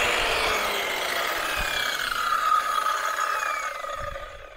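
Large 230 mm angle grinder with a diamond cutting disc spinning down after switch-off at the end of a cut through stone: a whine that falls steadily in pitch and fades away near the end.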